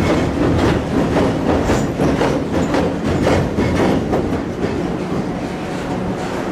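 Freight train cars rolling across the railroad bridge overhead, a loud steady rumble with rhythmic wheel clacks about two or three a second.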